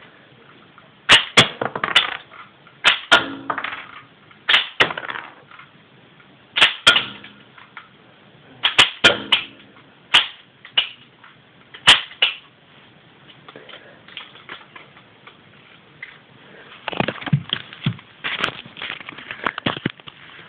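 Plastic LEGO bricks shot from a rubber-band LEGO gun clacking hard onto a wooden floor and bouncing: a sharp clack, often followed quickly by one or two smaller bounces, repeated about eight times over the first dozen seconds. Near the end come lighter plastic clicks and rattles from handling the gun.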